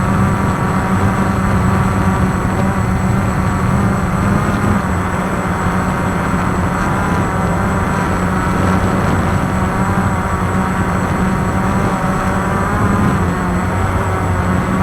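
QR X350 quadcopter's electric motors and propellers whirring in flight, the pitch wavering up and down as the throttle changes, over a steady low hum.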